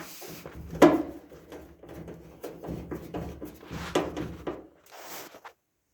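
Knocks and rattling of a GE dryer's sheet-metal cabinet parts being handled as screws are taken out, with a sharp knock about a second in and another about four seconds in.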